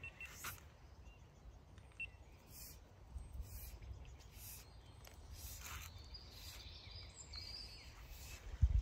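Quiet outdoor ambience with a few faint high bird chirps near the start over a steady low rumble, and a louder low thump near the end.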